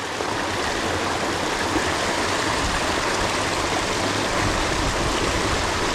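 Creek water rushing steadily over a small dam.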